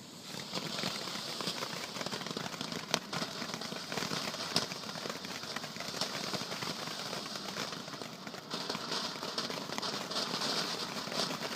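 Ground firework fountain burning: a steady spraying hiss full of crackling, with a couple of sharper pops about three and four and a half seconds in.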